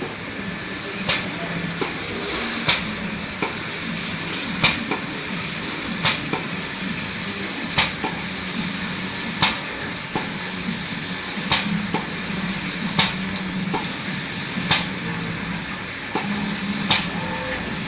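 Automatic coating spray machine running, its spray giving a steady hiss, with a sharp click every one and a half to two seconds.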